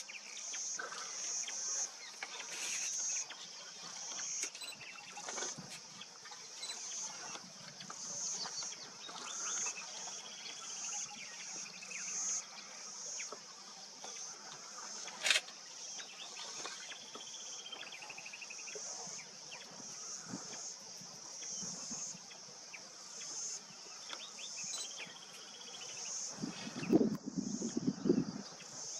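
Insects shrilling in the bush: a high-pitched buzzing chorus that swells and fades in pulses of about a second. A single sharp click comes about halfway, and a burst of louder, lower noise comes near the end.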